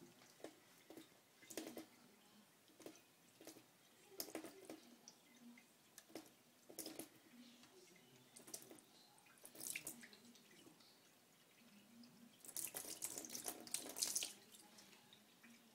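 Faint trickle of a thin stream of water from a kitchen tap into a stainless steel sink, broken by irregular small splashes as a kitten paws at the stream, with a louder run of splashing about thirteen seconds in.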